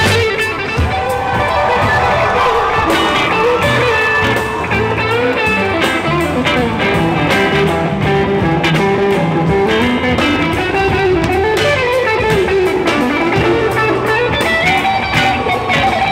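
Band music with an electric guitar playing a lead line with sliding notes over bass and drums.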